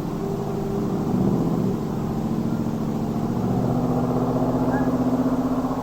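A motor vehicle's engine running close by, its pitch stepping up a little about two-thirds of the way in.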